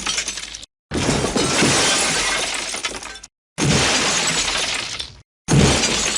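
Glass shattering sound effects played one after another: a crash ends under a second in, then three more each start suddenly with a loud smash and trail off into falling debris before being cut off into silence.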